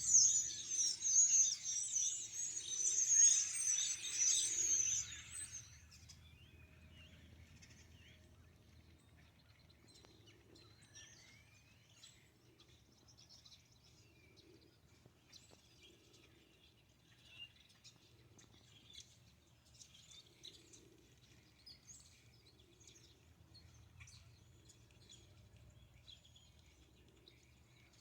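A flock of small birds chattering loudly, many high chirps overlapping, that cuts off suddenly about six seconds in; after that only faint, scattered chirps.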